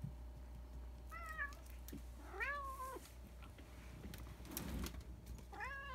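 Domestic cat meowing three times: a short meow about a second in, a longer one that rises and then holds, and a third starting near the end. A brief rustle comes in between.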